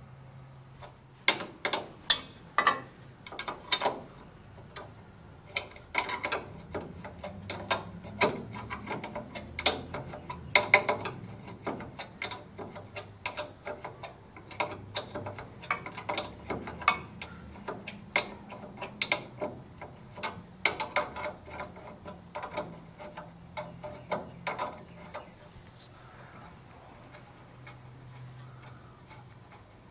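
Hand tools working on metal: irregular sharp clicks and taps, many in quick runs. They start about a second in and thin out near the end.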